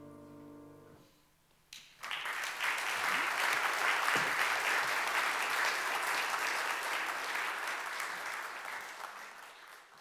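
The last sustained notes of the piano and singing die away in the first second, then an audience applauds from about two seconds in, the clapping fading out near the end.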